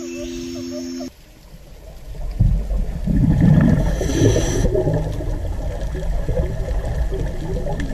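Held, steady musical tones cut off about a second in. A loud, low rushing and gurgling noise like running water then rises and continues.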